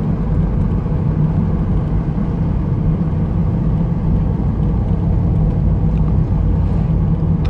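Car driving at a steady speed, heard from inside the cabin: a steady low engine hum mixed with tyre and road rumble.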